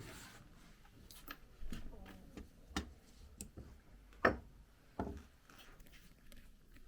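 Irregular sharp clicks and light knocks from small bicycle rear-derailleur parts and hand tools being handled during the cage swap, the loudest click about four seconds in.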